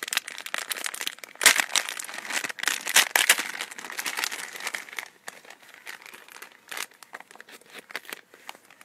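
Clear plastic bag crinkling and crackling in the hands as wristbands are pulled out of it, busiest in the first five seconds and then sparser.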